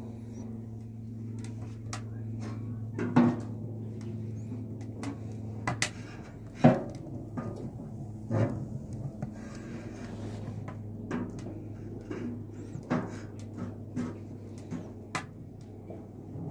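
Clanks and knocks of metal on metal as the lid of a cylindrical wood-burning room stove is handled, over a wood fire crackling in small clicks and a steady low hum. The louder knocks come about three, six and a half, and eight and a half seconds in.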